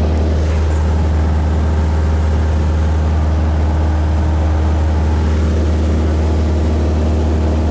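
Cessna 172's single piston engine and propeller running steadily at cruise, heard inside the cabin as a loud, constant low drone.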